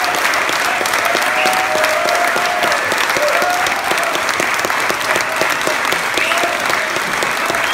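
Concert audience applauding steadily, dense clapping with a few voices calling out over it.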